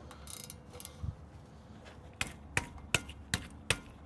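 A ratchet wrench clicking in an even rhythm, about three clicks a second from about two seconds in, as nuts are worked loose; a few light metal knocks come before it.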